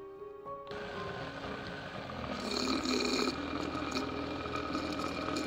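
Countertop blender switched on just under a second in, running steadily as it purées banana pieces and oat milk into banana ice cream; it gets louder about two seconds in and stays loud.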